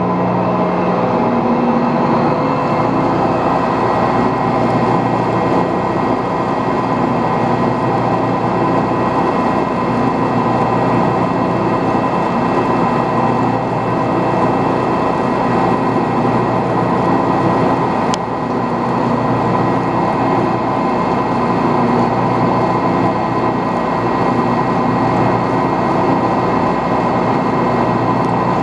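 Metal lathe running and taking a cut on a metal collar: a steady machine noise with a constant whine. A single sharp click about two-thirds of the way through.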